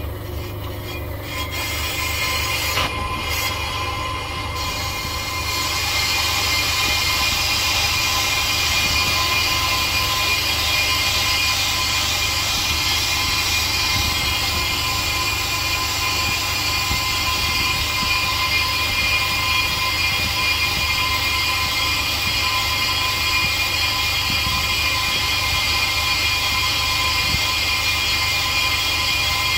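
Bench brake lathe running with a Zimmermann brake disc spinning on its arbor: a steady motor hum with a steady whine. About five seconds in, a louder steady hiss joins as the cutting bits skim the disc faces to remove its runout.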